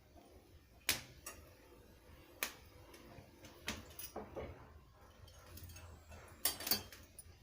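Scattered sharp clinks and knocks of a cooking utensil against a pan while whole ginger dry-roasts, the loudest pair near the end.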